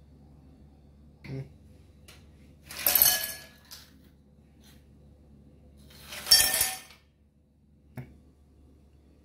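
Ice cubes tipped into two empty wine glasses, one after the other, each landing as a short clattering rattle of ice on glass with a brief glassy ring, about 3 seconds apart. Lighter single clinks come before and after.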